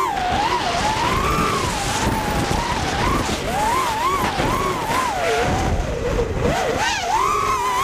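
FPV racing quadcopter's electric motors and propellers whining, the pitch swooping up and down again and again as the throttle changes through the turns, over a low rumble.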